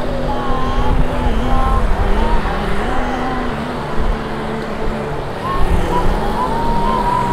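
Street traffic rumbling steadily, with a voice chanting above it in long held notes that waver up and down.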